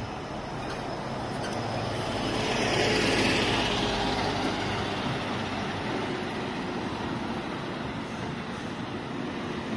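A motor vehicle passing on the street, its engine and tyre noise swelling to a peak about three seconds in and then fading, over steady traffic hum.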